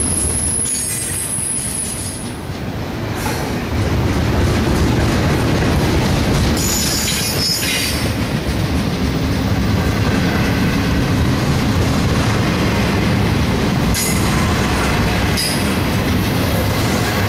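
Double-stack intermodal container well cars of a CSX freight train rolling past at speed: a steady heavy rumble of steel wheels on rail. Brief high-pitched wheel squeals come in twice, about 7 and 14 seconds in.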